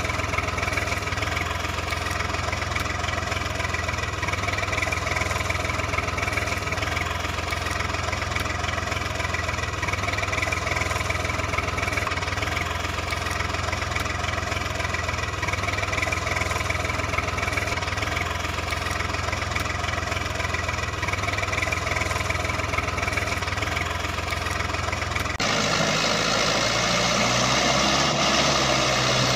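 Tractor engine sound idling steadily. About 25 seconds in it switches abruptly to a different, slightly louder engine sound that rises and falls in pitch.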